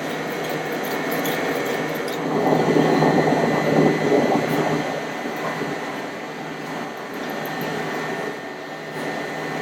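Steel knife blade scraping against a wet sharpening stone, a continuous gritty rasp that grows louder for a couple of seconds about two seconds in, then eases off.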